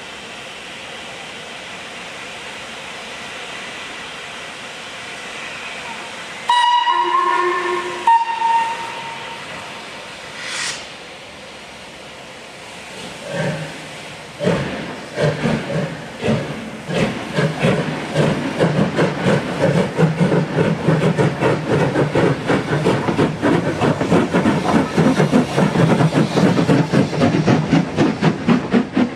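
Steam locomotive blowing off a steady hiss, then giving two blasts on its chime whistle. It starts away: its exhaust beats come slowly at first, then quicken and grow louder as the train gathers speed and passes close.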